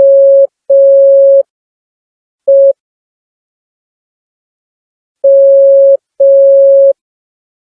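Morse code (CW) sidetone from a smartphone Morse code practice app: a steady single-pitch beep keyed slowly and unevenly. It sounds two long dashes, a short dot, then after a gap of about two and a half seconds two more dashes.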